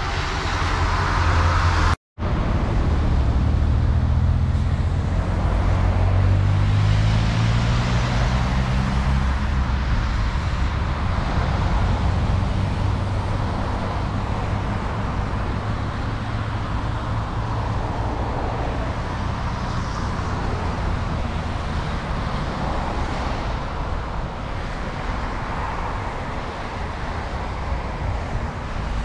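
Street traffic, with a nearby motor vehicle's engine accelerating, its pitch rising over several seconds, then a steady rumble of road traffic. The sound cuts out for a moment about two seconds in.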